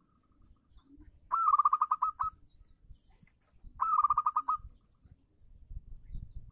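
Zebra dove (perkutut) calling: two phrases of rapid staccato cooing notes, about eight notes each, a couple of seconds apart. A faint low rumble runs underneath and grows near the end.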